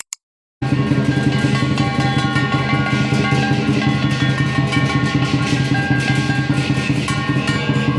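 Background music with a steady beat, starting about half a second in after a brief silence.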